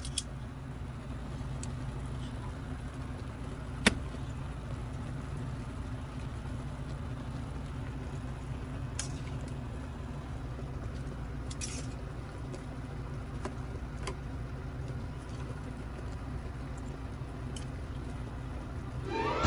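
Steady low rumble and hum from the stove where a pot of corn has been boiling, with a few light clicks as the cooked cobs and tongs touch a metal tray, one sharper click about four seconds in.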